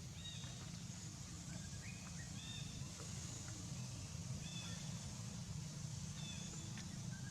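A bird calling over and over, a short whistled phrase that steps up and down in pitch, repeating every second or two, over a steady low rumble.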